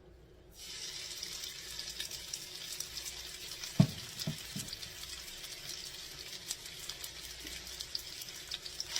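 Bite-sized chicken thigh pieces coated in cornstarch sizzling in hot sesame oil in a pan, the sizzle starting about half a second in as the chicken goes in and running on steadily. A loud thump about four seconds in, followed by two softer ones.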